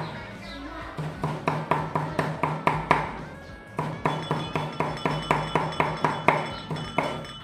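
Cleaver chopping steadily on a thick round wooden block, about four strokes a second, mincing raw prahok (fermented fish paste) fine. The chopping pauses briefly near the start and again about three and a half seconds in.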